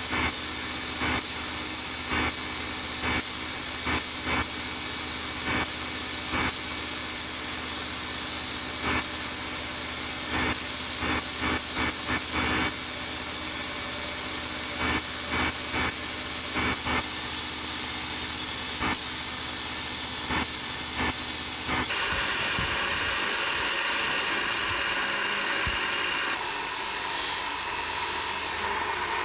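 Sandblast cabinet gun blasting a cast aluminium housing: a loud, steady hiss over a low hum, cutting out briefly many times as the trigger is let off. About 22 s in it gives way to the steady running of a bench machine's spinning wheel.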